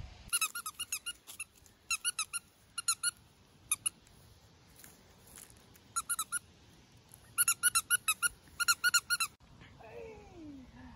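Squeaky dog toy squeaked in quick runs of short, even squeaks, several a second, as puppies chew and bite it, with pauses between runs. Near the end comes a longer squeal that falls in pitch.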